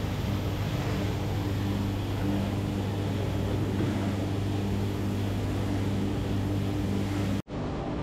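Drum coffee roaster running while roasting green coffee beans: a steady low mechanical hum, cut off briefly near the end.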